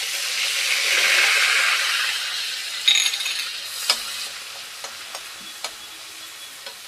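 Coarse garlic-ginger paste sizzling in hot oil in a metal kadhai, loudest about a second in and then dying down. A perforated metal skimmer clinks and scrapes against the pan several times as the paste is stirred.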